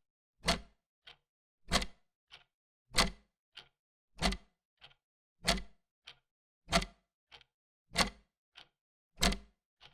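Old mechanical clock ticking steadily, a loud tick and a softer tock alternating at a little under two beats a second.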